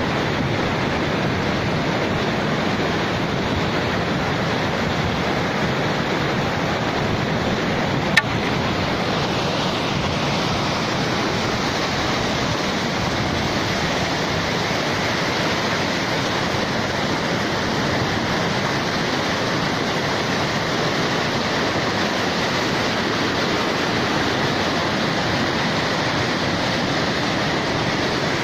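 Steady rushing water noise, with one sharp click about eight seconds in.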